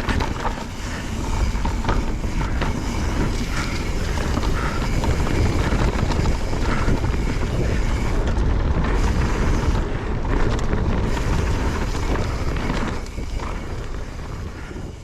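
Mountain bike riding over a rough dirt trail: wind buffeting the on-board microphone over the rumble of the tyres, with frequent knocks and rattles from the bike. The sound fades out near the end.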